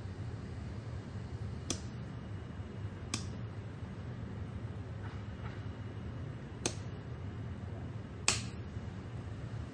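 A light switch clicking four times at uneven intervals, the last click the loudest. The bulb's power is being cycled on and off to put the Wi-Fi LED bulb back into factory mode.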